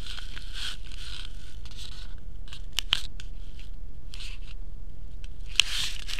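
Handling noise: rustling and scraping with a few sharp clicks, over a steady low hum.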